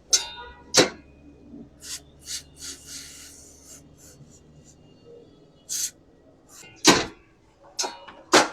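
Door lock and handle being worked, giving a series of sharp latch clicks and lighter knocks, with the loudest clicks right at the start and near the end.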